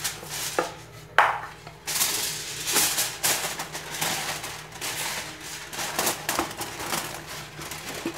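Aluminium foil being pulled from its box and handled: crackling, crinkling rustles in uneven bursts, with a sharp snap about a second in.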